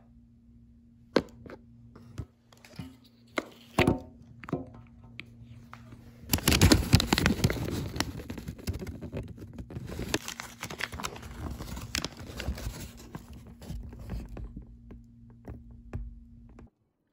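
Paper food wrapping being handled: a few knocks, then a long stretch of crinkling and rustling as the wrapper is opened.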